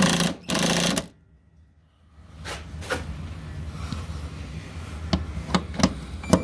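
Cordless impact driver hammering a nut onto the hood latch bolt in a loud burst of rapid rattling for about a second, then a pause and quieter mechanical whirring with a few sharp clicks as the fastener is run down.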